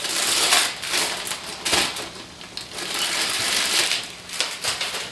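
Packaging rustling and crinkling in several bursts as the accessories are handled and unwrapped.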